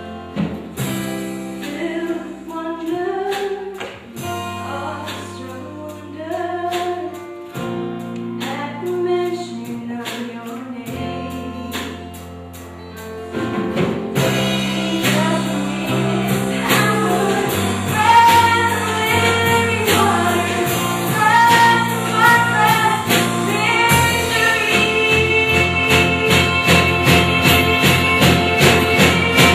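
Live band playing a worship song with a woman singing, over sustained bass notes and guitar. About halfway through the drums come in with a steady beat and the music gets louder and fuller.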